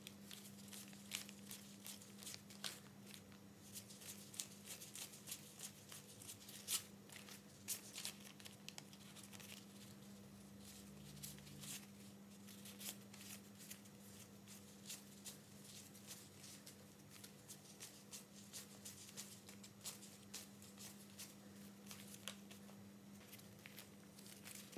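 Faint, crisp rustling and flicking of worn paper banknotes, 5,000-rupiah notes leafed through one by one while being counted by hand. A steady low hum sits underneath.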